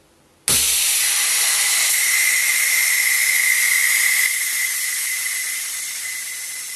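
High-pressure air hissing out of an EDgun Leshiy PCP air rifle's air tube through its slightly opened bleed screw, with a steady whistle note in the hiss. It starts suddenly about half a second in, holds steady, then slowly fades from about four seconds in as the tube empties.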